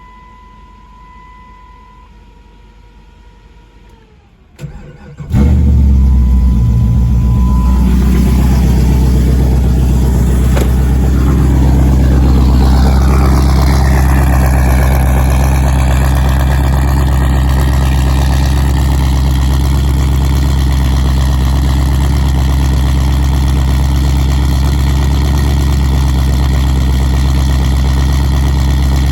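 A 1998 Jeep Grand Cherokee's 5.2 L Magnum V8, built with aftermarket heads and cam, cranks briefly and starts warm about five seconds in. It then idles steadily and loudly with the exhaust cutout closed.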